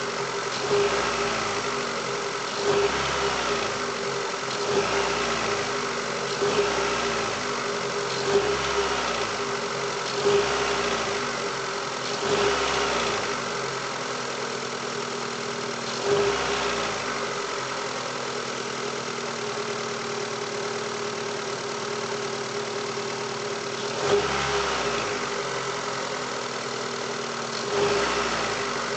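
Mitsubishi 4G18 1.6-litre four-cylinder engine, cold, blipped to about 2000 rpm and snapped back to idle again and again: roughly every two seconds for the first dozen seconds, then a few more spaced-out blips with steady idling between. A knock follows each throttle release on the cold engine, which the owner puts down to a partly clogged hydraulic lash adjuster.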